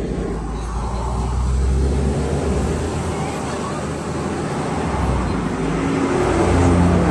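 Inside the cabin of a 2016 GAZelle Next minibus with a Cummins 2.8-litre four-cylinder turbodiesel: the engine runs under load as the bus pulls away and gathers speed, with road noise growing louder.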